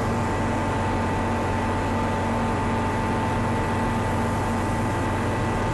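Light aircraft's engine and propeller droning steadily in cruise flight, heard from inside the cockpit with air rush, a constant whine sitting over the drone.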